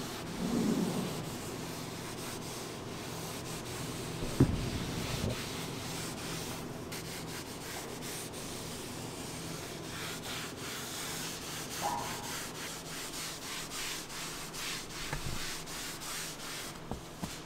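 A foam applicator pad rubbing conditioner into white car-seat leather in back-and-forth strokes, which turn into a quicker, even rhythm in the second half. A single sharp knock comes about four seconds in.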